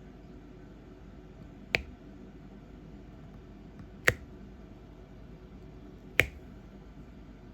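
Three sharp, short clicks about two seconds apart over a faint steady hiss.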